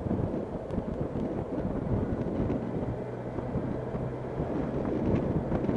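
Motorcycle engine running at low road speed, with wind rushing over the microphone.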